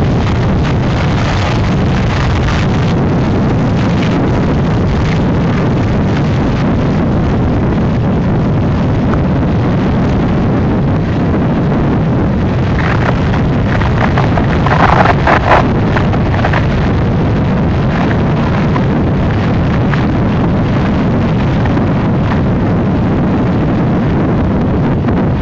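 Steady wind noise on the microphone over the rumble of a passing freight train of empty coal hoppers. A brief louder sound comes about fifteen seconds in.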